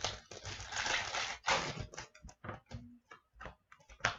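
Foil trading-card pack crinkling and tearing open for about the first two seconds, then a quick series of light clicks and taps as the hockey cards are handled and set down.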